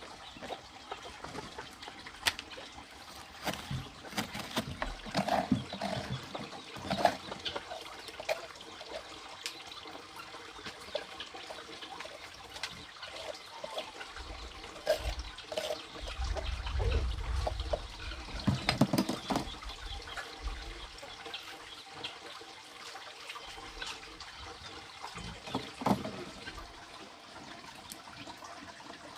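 Water trickling and splashing, with many scattered clicks and knocks and a low rumble around 16 to 19 seconds in.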